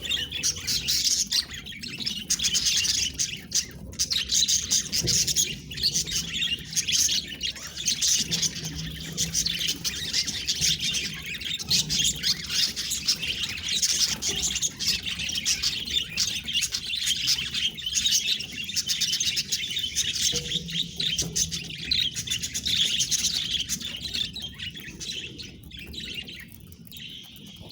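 Budgerigars chattering and warbling, a dense continuous stream of chirps that gets a little quieter near the end.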